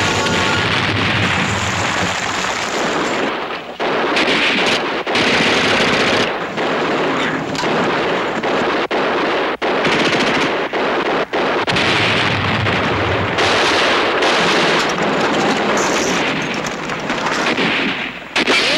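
Battle gunfire from a 1960s TV war drama soundtrack: rapid machine-gun bursts and rifle shots, near-continuous with only brief breaks.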